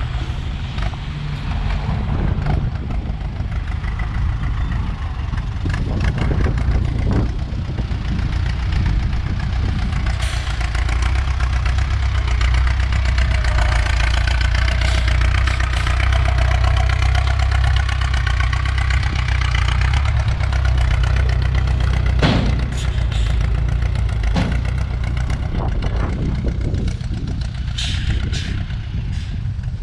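Ford Seree tractor's diesel engine running loud through its exhaust as the tractor works the dirt with a rear disc implement. The engine note grows louder and fuller from about ten seconds in, then eases back a little after about twenty seconds, with a few short knocks and clanks.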